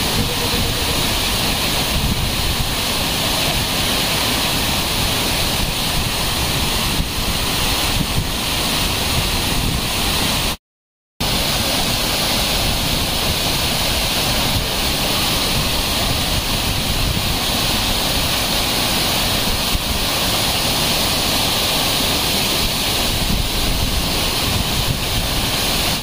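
Large waterfall rushing steadily as a broad cascade pours down a sloping rock face, a continuous, even roar of falling water. It cuts out for about half a second around ten seconds in.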